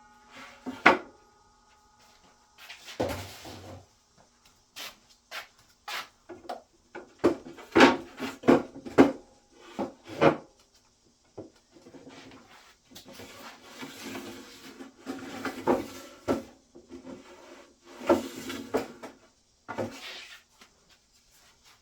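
Wooden wings on folding metal brackets being handled and moved: a series of irregular knocks and clunks with some rubbing and scraping in between.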